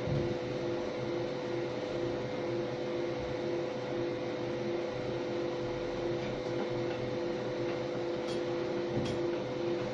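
MOPA fiber laser marking machine running: a steady fan-like hum with a constant tone, and a lower tone that pulses on and off in a regular rhythm. There are a couple of faint ticks near the end.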